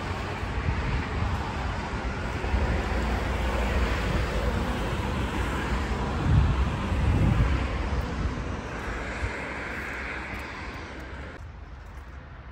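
Wind buffeting the microphone over a steady wash of distant engine noise. It swells a little midway and cuts off abruptly near the end.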